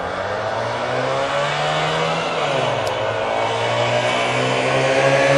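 Two Trabants' two-cylinder two-stroke engines revving hard under full acceleration, pitch climbing, dropping briefly about halfway through as at a gear change, then climbing again. The sound grows louder toward the end as the cars approach.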